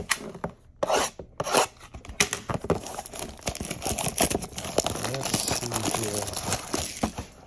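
A cardboard box of baseball cards being handled and torn open: a few knocks, then from about two seconds in a long stretch of continuous tearing, rubbing and crinkling of its packaging that stops near the end.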